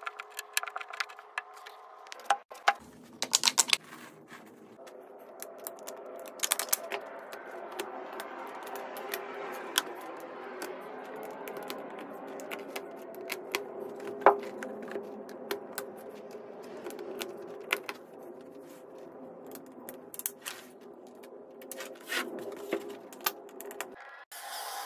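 Irregular sharp clicks and knocks of particleboard furniture panels and small metal fittings being handled and fitted together, over a steady low hum.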